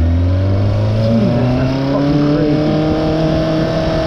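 Motorcycle engine running under way, its pitch rising slowly and steadily as it accelerates.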